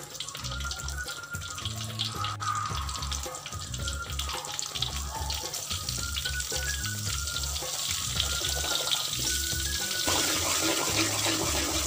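Margarine sizzling and crackling as it melts in hot oil in a steel wok, the sizzle growing louder over the last few seconds. Background music plays under it.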